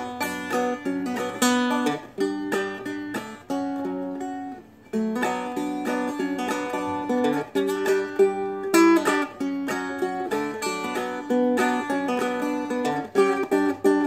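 Seagull Merlin, a small dulcimer-style fretted stringed instrument, played through a picked tune. Quick plucked notes and strummed pinches come in a steady rhythm, with a brief break about five seconds in.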